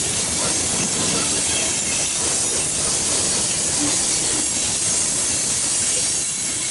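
Loaded coal hopper cars of a CSX freight train rolling past, a steady noise of steel wheels on rail.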